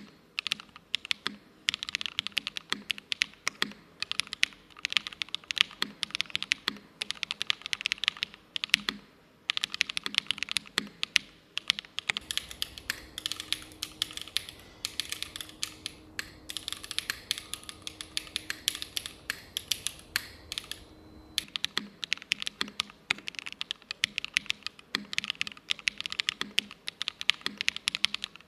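Fast, continuous typing on a Loong60 60% mechanical keyboard fitted with GMK Rainy Day keycaps: a dense stream of keystrokes with only brief gaps. From about twelve to twenty-one seconds in, the same typing sounds brighter and hissier, picked up by a different microphone.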